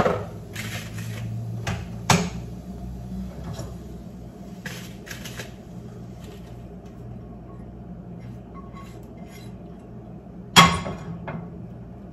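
Kitchen clatter of a frying pan and utensil as scrambled eggs are plated: scattered clicks and scrapes, sharp knocks at the start and about two seconds in, and the loudest clank near the end, over a steady low hum.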